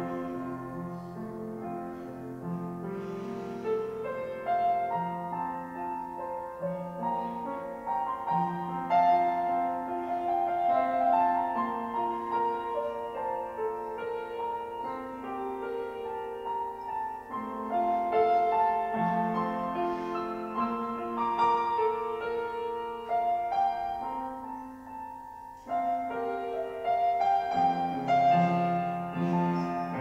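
Slow instrumental sacred music: piano accompaniment with clarinet, the piano carrying a stretch on its own while the clarinet rests. The music dips briefly a few seconds before the end, then comes back in fuller.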